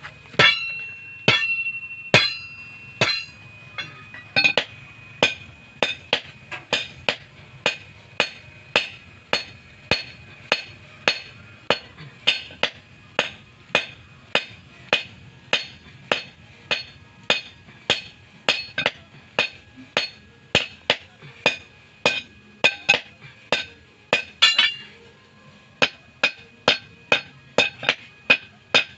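Blacksmith's hand hammer striking 22 mm steel rod on an anvil, each blow ringing sharply. A few slower blows open, then a steady rhythm of about two blows a second, broken near the end by a quick flurry of lighter taps.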